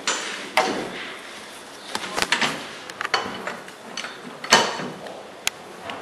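A socket on a long bar turning the wheel bolts of a VW Variant's rear wheel: irregular metal scraping and rattling with a few sharp clicks.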